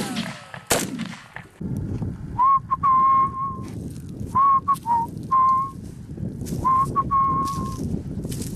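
A single gunshot about a second in, with the tail of an earlier shot dying away at the start. From about two and a half seconds in, a tune is whistled in clear held notes over a low steady rumble.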